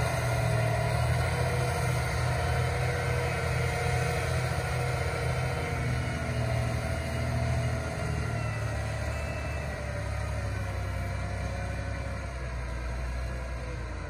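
John Deere 8335RT rubber-track tractor's six-cylinder diesel running steadily under load as it pulls a tillage implement through the soil. The sound grows a little fainter near the end as the tractor moves away.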